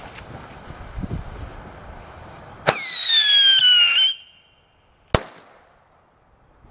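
An old firework going off: a loud whistle that falls in pitch for about a second and a half, then a single sharp bang about a second later.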